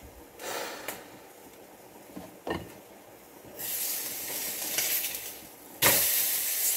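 Lidded pot on the stove boiling hard, hissing and sizzling with steam. The hiss swells about three and a half seconds in and gets louder still near the end, with a light clink about two and a half seconds in.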